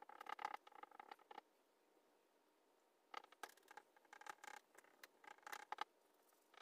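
Faint scratchy dabbing and rubbing of a small paint sponge against a painted board: a quick run of short strokes in the first second and a half, then a second, longer run starting about three seconds in.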